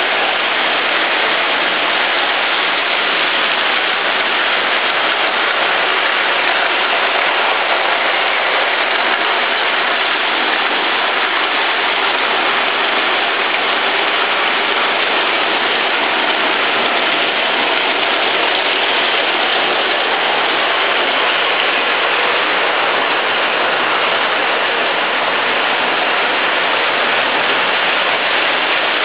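Lionel O-gauge model trains pulled by Santa Fe diesel units, running on three-rail track: a steady mechanical rattle of wheels and geared motors with no let-up.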